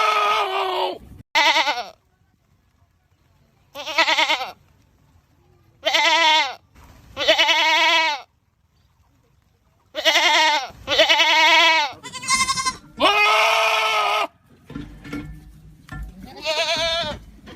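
Goats screaming: a string of about ten loud bleats with a wavering pitch, each half a second to a second long, some in quick pairs, with gaps of up to two seconds between them.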